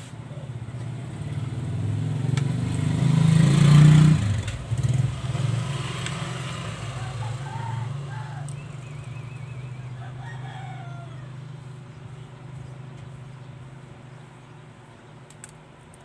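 A passing motor vehicle's engine, growing louder to a peak about four seconds in and then slowly fading away, with a rooster crowing in the background.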